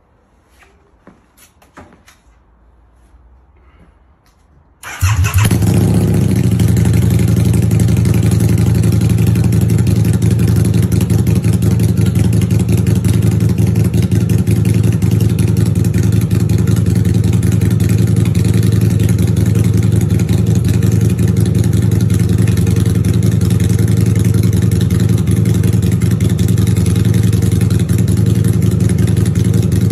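A custom Harley-Davidson V-Rod's Revolution V-twin starts about five seconds in and then idles steadily and loudly. Faint clicks and handling noises come before the start.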